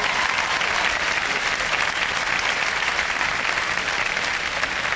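Audience applauding steadily: a dense clatter of many hands clapping.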